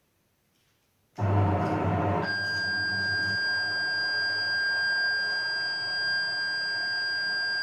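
Electronic alert signal from a siren test. It starts abruptly about a second in with a loud burst and low rumble, then settles into a steady, unwavering high tone held over a noisy hum.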